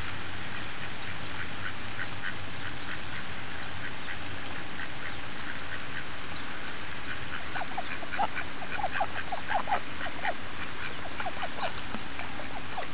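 Ducks quacking: soft short calls at first, then from about seven and a half seconds in a louder, rapid run of quacks lasting several seconds, over a steady hiss.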